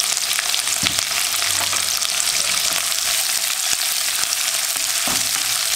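Sliced onions and curry leaves sizzling steadily in hot sunflower oil in a non-stick pan, being sautéed with salt to soften them, with a spatula stirring and clicking against the pan a few times.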